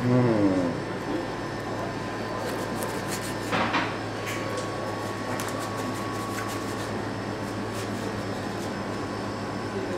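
Steady room hum with faint clicks and scrapes of a knife and fork cutting a pizza in a cardboard box, and one louder short scrape about three and a half seconds in. A brief voiced sound comes at the very start.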